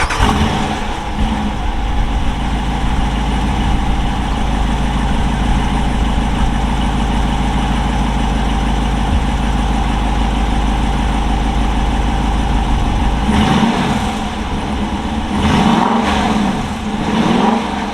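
2021 Dodge Durango R/T's 5.7-litre HEMI V8 exhaust just after a warm start, idling steadily. About thirteen seconds in it is revved in a few quick blips.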